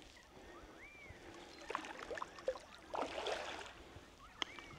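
Shallow creek water splashing and swishing in two short bursts as someone wades in, with a sharp click near the end. Thin whistled bird calls rise and fall at times.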